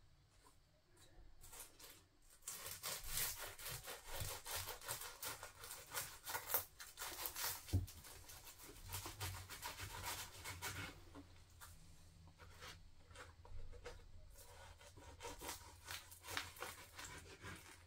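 A kitchen knife sawing through crisp baked puff-pastry bakes on a wooden chopping board. It is a faint, dense crackling rasp that starts a couple of seconds in and lasts about eight seconds, then thins to lighter, scattered crackles.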